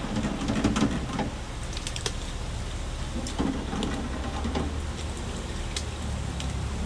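Meat pieces deep-frying in hot oil in stainless steel commercial deep fryers: the oil bubbling and crackling with many scattered sharp pops, over a steady low hum.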